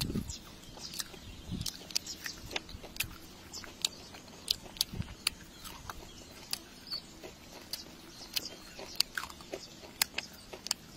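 Crunching and chewing of crispy tempura-battered fried small fish, heard as irregular sharp crackles and clicks a few times a second as the crisp batter and bones break.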